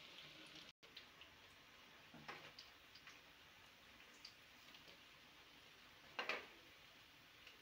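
Hot oil sizzling under frying vegetable balls, cut off suddenly less than a second in. After that, near silence with scattered faint ticks and two slightly louder clicks.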